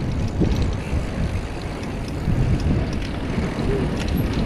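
Wind buffeting the microphone of a moving bicycle's handlebar camera, a rough low rumble, mixed with the bicycle's tyres rolling over brick paving.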